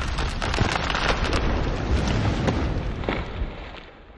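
Logo-intro sound effect of crackling sparks over a low rumble, fading away near the end.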